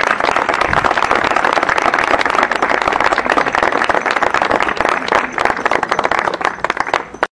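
Audience applauding, a dense, steady patter of many people clapping that cuts off suddenly near the end.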